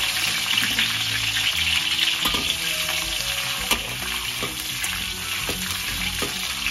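Garlic cloves sizzling in hot oil in a metal wok, being fried toward light brown. A metal spatula stirs them, clicking and scraping against the pan several times.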